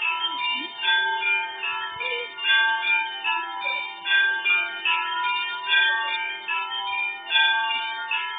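Russian Orthodox church bells ringing: several bells of different pitches struck in a quick, repeating pattern, each tone ringing on under the next strikes.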